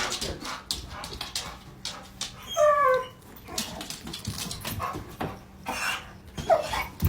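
Bully-breed dog whining: one drawn-out falling whine about two and a half seconds in and a shorter one near the end, among scattered clicks and knocks.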